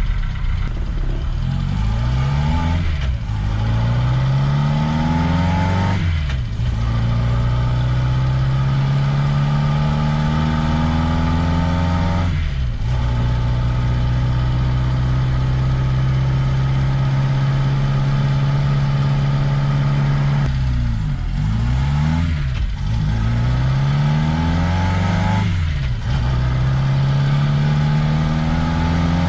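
1969 Reliant Regal's four-cylinder engine pulling away and accelerating through the gears: the engine note rises steadily, then drops briefly at each of several gear changes.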